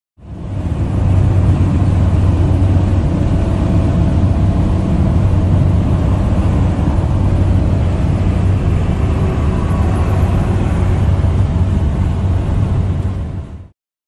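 Steady low rumble of a road vehicle running, with a constant low hum underneath; it cuts off abruptly near the end.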